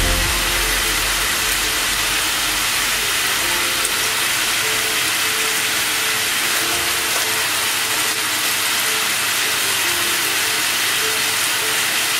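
Tomato and spice masala sizzling steadily in oil in a pan as it is fried down.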